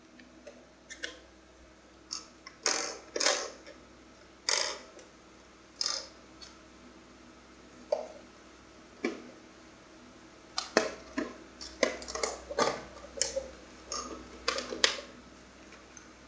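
Irregular clicks and short plastic clatters of two Radiolink AT9 radio-control transmitters being handled: sticks and switches worked and the units turned over. The clicks come in a quicker run in the second half.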